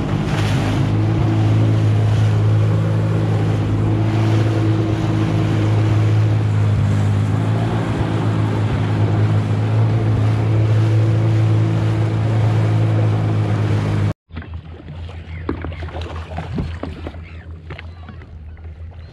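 Sea-Doo jet ski engine running steadily at speed, with water spray and wind rushing past. About fourteen seconds in it cuts to a much quieter scene with a few small knocks as the craft sits still.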